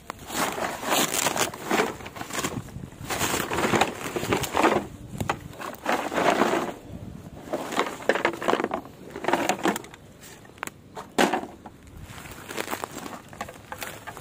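Rummaging by hand through rubbish in dry grass: irregular crackling and crunching of dry grass stems and plastic sacks as broken plastic and metal debris is shifted, with a few sharp clicks later on.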